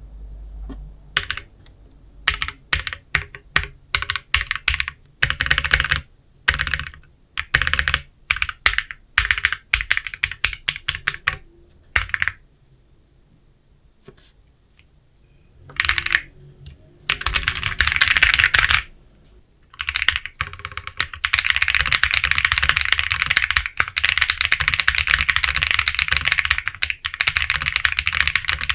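Matrix 6XV 3.0 Corsa custom mechanical keyboard with unlubricated Bsun RAW linear switches and PBT keycaps being typed on: bursts of keystrokes broken by short pauses, a lull near the middle, then steady fast typing from about two-thirds of the way in.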